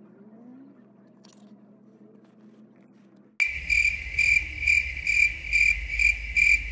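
Faint low hum, then a little over three seconds in a loud, high-pitched steady trill starts abruptly, pulsing about twice a second over a low rumble.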